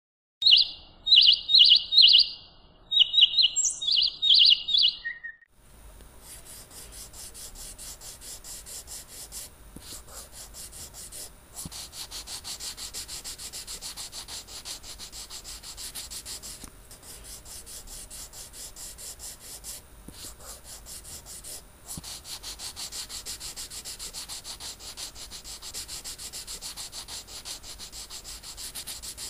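Birds chirping in short, high bursts for the first five seconds. Then a paintbrush scrubs rapidly and steadily across the canvas, stroke after stroke, with a few short pauses.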